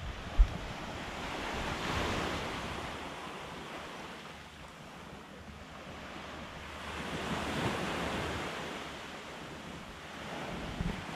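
Small sea waves washing up onto a sandy beach, swelling in twice, with wind rumbling on the microphone. There is a brief thump about half a second in.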